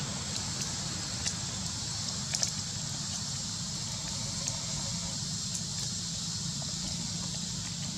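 Forest ambience: a steady high-pitched insect drone with a low rumble beneath it, and a few sharp clicks, likely twigs or branches moved by the monkeys, in the first few seconds.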